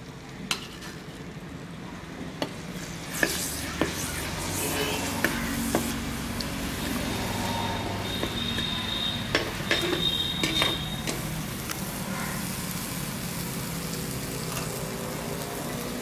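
Ginger-garlic paste sizzling as it fries in a hot clay pot, stirred with a perforated steel ladle that scrapes and taps against the pot. The sizzle builds a few seconds in, with scattered sharp taps of the ladle.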